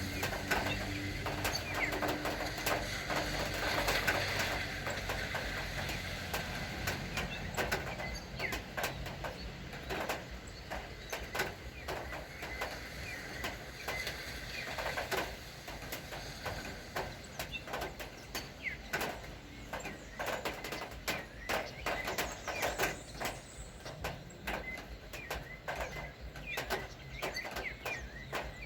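Rain falling, with many irregular drops ticking on a hard surface over a light hiss. A low engine hum fades out in the first few seconds.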